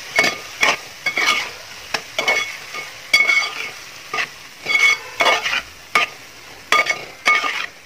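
A metal spoon stirring lemon pieces in hot oil and chilli masala in a metal pot, scraping and clinking against the pot about twice a second with a ringing note, over a faint sizzle.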